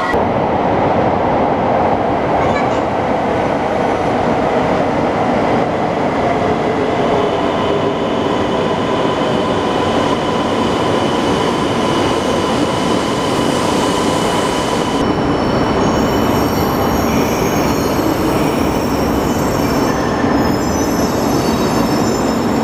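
Shinkansen train pulling into an underground platform: a steady loud running rumble with a faint whine. High-pitched brake squeals join in from about the middle as it slows to a stop.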